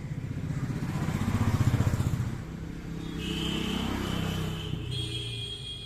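A motorcycle engine running nearby, swelling to a peak about two seconds in, then settling to a steadier, lower hum. A steady high whine joins about three seconds in.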